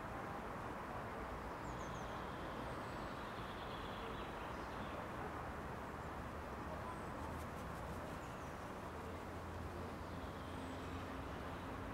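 Outdoor ambience: a steady low hum of distant road traffic, with faint short high-pitched chirps of small birds every few seconds and a few faint ticks about seven seconds in.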